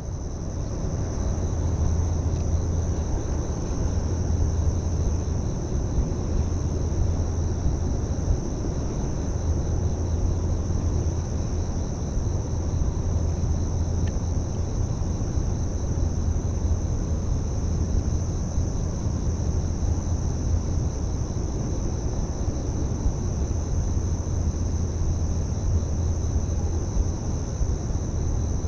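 Steady low rumble of riverside ambience, with a continuous high-pitched insect chorus above it.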